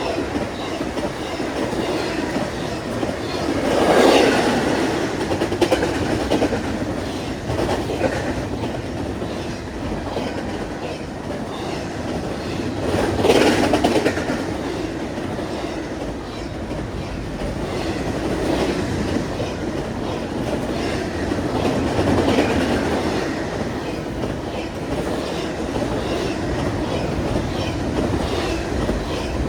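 Union Pacific double-stack intermodal train rolling past, its wheels clicking steadily over the rail joints. It swells louder twice, about four seconds in and again around thirteen seconds in.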